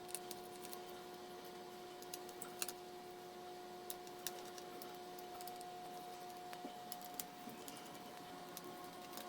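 Light, irregular clicks and taps of small hard parts and tools being handled during laptop repair work, a dozen or so spread unevenly, over a faint steady hum.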